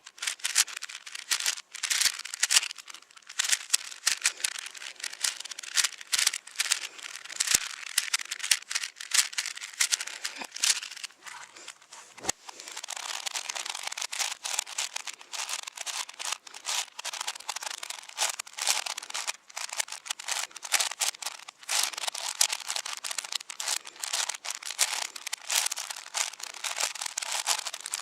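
Rapid, continuous clicking and clacking of plastic speed-cube layers being turned during a fast solve. There is a short lull about twelve seconds in, and after it the turning becomes a denser, steadier rattle.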